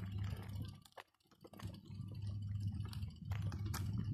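BMX tyres rolling over a brick-paved path: a steady low rumble with rapid clicking and rattling, dropping out for a moment about a second in.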